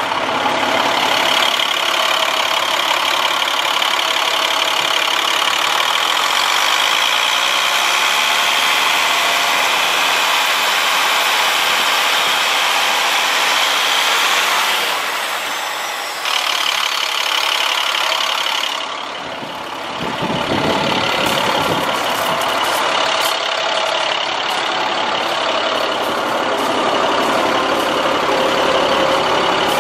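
Diesel engine of an International 7500 truck idling steadily, with a brief dip in level about two-thirds of the way through.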